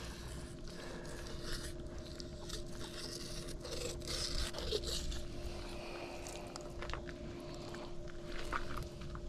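Fillet knife slicing and scraping through finetooth shark meat, a run of irregular scrapes and short cuts, over a faint steady hum.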